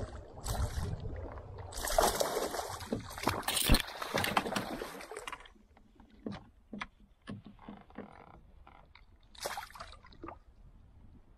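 Water splashing and sloshing beside a canoe as a hooked pike thrashes at the surface, loud and uneven for about the first five seconds. After that it goes quiet, with a few small knocks and clicks and one more short splash near the end.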